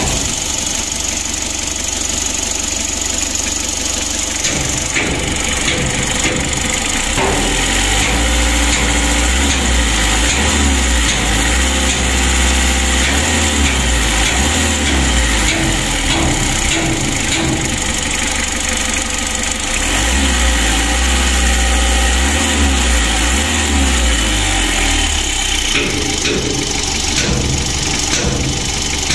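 Mitsubishi L300's four-cylinder diesel engine running just after start-up, picking up speed twice for several seconds. The timing belt has just been re-tensioned and the hum is gone, but a ticking remains, which the mechanic puts down to the Bosch injection pump.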